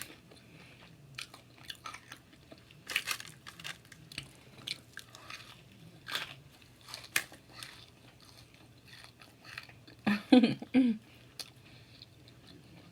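Close-up crunching and chewing of hot Cheeto-crusted jalapeño poppers, with irregular crisp crackles as the coating breaks. A brief vocal sound comes about ten seconds in.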